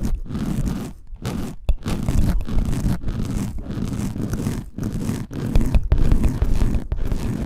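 Close ASMR ear cleaning: an ear-cleaning tool scraping and rubbing in quick strokes inside a microphone's ear, with a heavy low rumble and short breaks between strokes.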